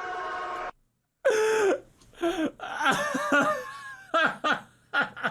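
A steady held sound of several tones cuts off suddenly under a second in. After a short silence, bursts of laughter follow.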